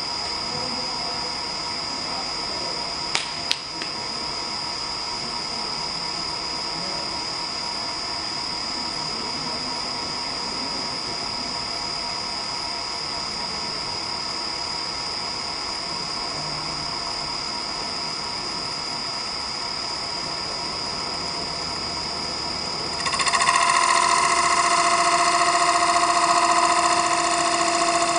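Electric motor whine of a CNC wood lathe running, steady, with several high tones and two sharp clicks about three seconds in. About 23 seconds in, the whine steps up louder with a lower, steady tone added.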